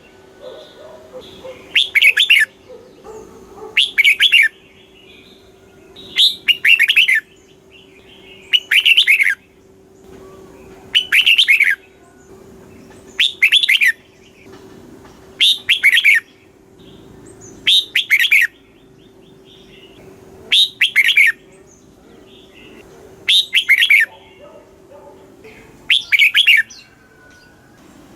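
Red-whiskered bulbul song: a short, loud, whistled phrase repeated about every two and a half seconds, the kind of song played to caged bulbuls to get them singing. A faint steady hum lies underneath and stops near the end.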